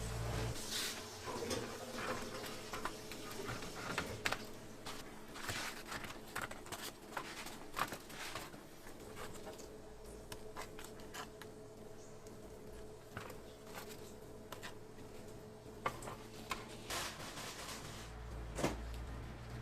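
Scattered light clicks, taps and rustles of food being handled and assembled, over a faint steady hum.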